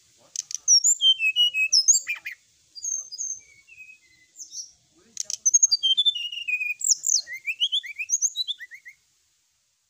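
Brown-chested jungle flycatcher (SRDC) singing a fast, varied run of high whistled and chirping notes, some gliding up and some gliding down, with a short break about four seconds in.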